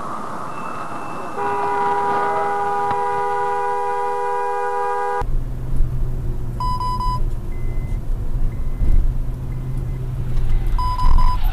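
A car horn held in one long honk of about four seconds, several tones sounding together as a chord over road noise. After that, steady low road rumble inside a moving car, with two short high beeps.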